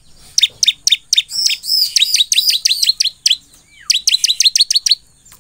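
Bar-winged prinia (ciblek) singing: rapid runs of sharp, high chirps, each sweeping down in pitch, with a brief break about three and a half seconds in before a second run.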